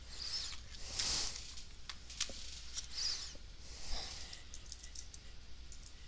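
Scattered small clicks and a few brief rustles over a low steady hum.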